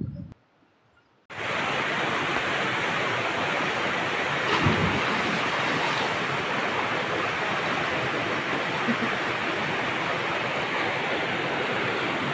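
After a second of silence, the steady rush of river water, with one brief louder splash about four and a half seconds in.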